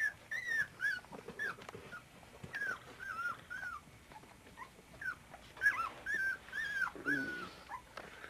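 Twenty-four-day-old puppies whimpering and squealing: a steady string of short, high-pitched cries, two or three a second, each rising and falling, with a lower, rougher cry about seven seconds in.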